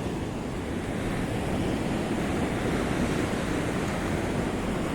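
Pacific Ocean surf washing in on a rocky beach, a steady rushing wash of waves, with wind buffeting the microphone.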